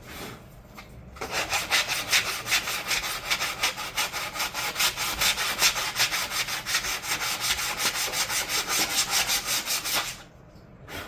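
Sandpaper rubbing back and forth on a template in quick, even strokes, about five a second. It starts about a second in and stops near the end.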